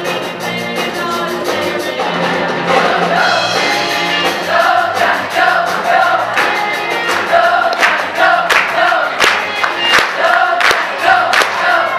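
Live rock-and-roll band with a group of voices singing together in chorus. About eight seconds in, a sharp, regular beat comes to the front.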